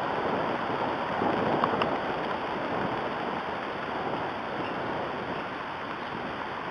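Steady rain falling on the stick nest and the surrounding leaves: an even hiss with no break.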